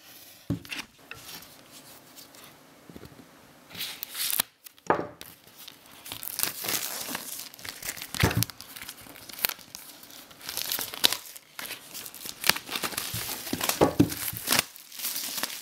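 Plastic shrink-wrap being peeled off a vinyl LP sleeve: irregular crinkling and tearing of thin plastic film, starting about four seconds in.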